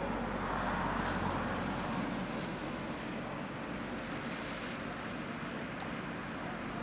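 A vehicle engine running with a steady hum while a car sunk in a pond is dragged through the water, with a swell of sloshing, rushing water in the first couple of seconds.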